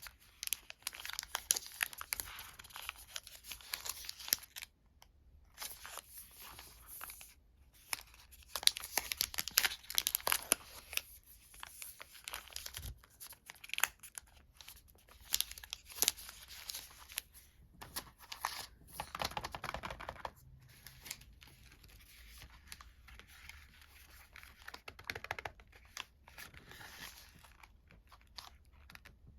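Plastic and foil sweet wrappers being torn open and crinkled by hand, in irregular crackling spells with short pauses.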